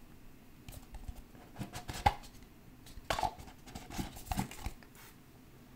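Light, scattered taps and clicks, about eight of them, of trading cards in plastic magnetic holders being handled and set down on a table.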